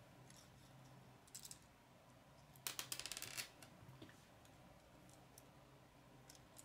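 Faint clicking of plastic K'nex pieces being handled and pushed together, with a quick run of clicks about three seconds in; otherwise near silence.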